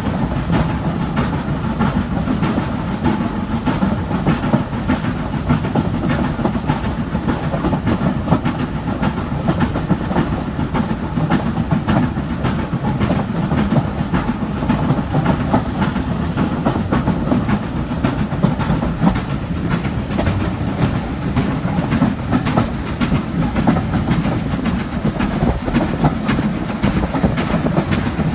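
Steam-hauled train running along the line, the carriage wheels clattering steadily over the rail joints, with the Stanier Black 5 4-6-0 steam locomotive hauling at the front, heard from a carriage window.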